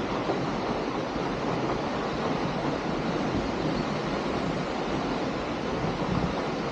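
Steady rushing of flowing water from the stream and the waterfall upstream, with wind on the microphone.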